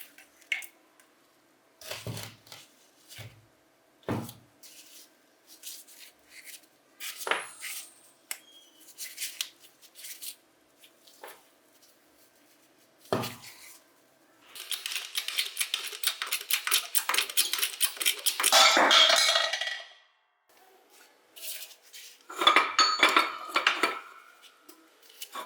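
Metal parts and tools clinking and knocking as they are handled and set down one by one, with a long dense rattle about halfway through, like a handful of small metal pieces being shaken or stirred, and a shorter rattle near the end.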